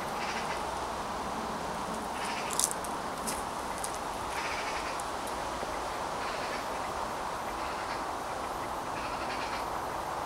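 Steady outdoor background noise with a bird calling in short calls about every second or two, six or so in all, and a couple of sharp clicks about two and a half to three seconds in.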